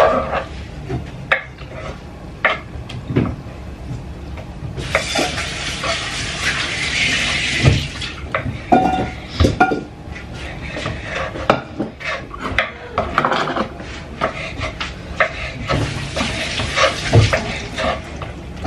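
Kitchen knife cutting raw beef on a wooden cutting board: irregular knocks and clicks of the blade against the board. Two stretches of steady hiss come in, about five seconds in and again near the end.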